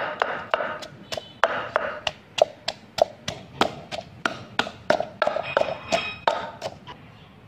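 Wooden pestle pounding red chilies and garlic in a clay mortar: steady thuds, about three a second, each with a short ring from the mortar. The pounding stops shortly before the end.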